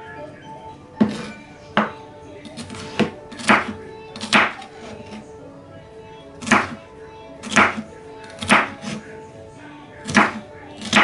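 Chef's knife chopping red bell pepper on a wooden cutting board: about ten sharp knocks of the blade against the board, at uneven intervals of about one a second, over background music.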